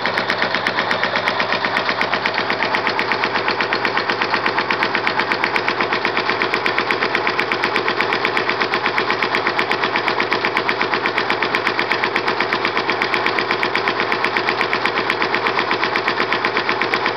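Yanmar 1GM10 single-cylinder marine diesel engine running steadily, each firing stroke a sharp, even knock in a fast regular rhythm.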